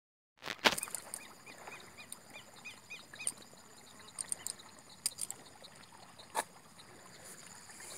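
Footsteps in rubber boots across damp grass, heard as scattered sharp clicks and rustles. A steady high insect drone runs behind, and a quick series of short chirps comes between about one and three and a half seconds in.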